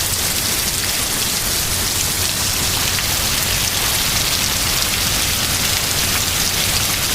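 Heavy thunderstorm rain pouring down: a steady, dense hiss of drops with a fine patter running through it.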